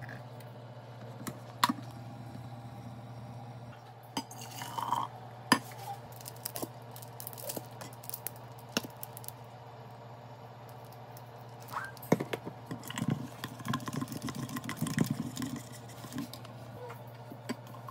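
Kitchen coffee-making sounds: milk pouring into a milk frother's metal jug, then clinks and taps of a stainless steel cup, spoon and bottles on a countertop, over a steady low hum.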